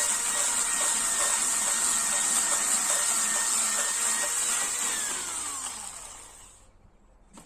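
Chainsaw running steadily at speed with a high whine, then switched off about five seconds in, its pitch falling as it winds down to a stop.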